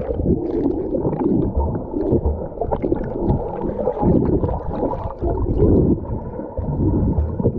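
Rough sea water gurgling and sloshing, heard muffled from underwater in heavy surf: a dull, irregular churning with no clear high sounds.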